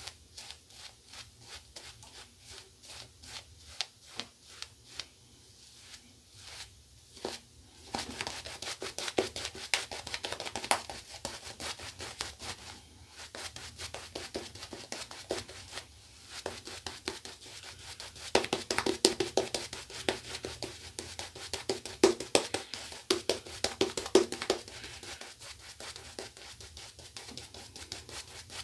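West Coast Shaving Tortoiseshell synthetic shaving brush working soap lather over two days' stubble: quick, rhythmic swishing and scratching strokes against the face, a few per second. The strokes are fainter at first and get louder and busier from about eight seconds in.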